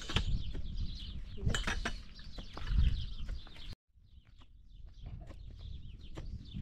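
Clinks and knocks of dishes and utensils with small birds chirping; the sound cuts out abruptly a little under four seconds in, then quieter chirping and scattered clicks come back.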